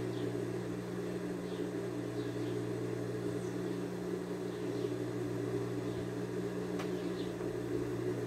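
Steady low mechanical hum from an appliance running in the room, under the soft sliding of a dry electric iron over cotton fabric, with a faint tap about two-thirds through.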